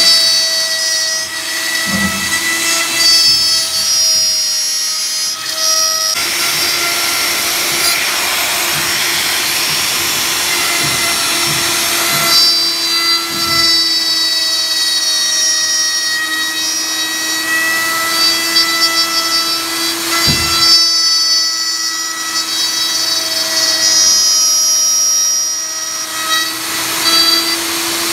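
Handheld electric router running at speed with a steady high whine, its bit cutting recesses into a wooden clock face. Two low thumps stand out, about two seconds in and again past the middle.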